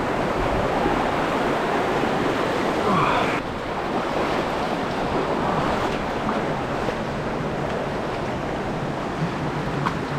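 Steady rush of running river water, an even noise with no distinct events, changing abruptly about three and a half seconds in and running a little quieter after.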